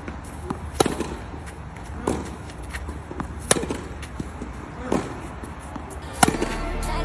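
Tennis rally: five sharp racket strokes on a tennis ball about every second and a half, louder strokes alternating with fainter ones.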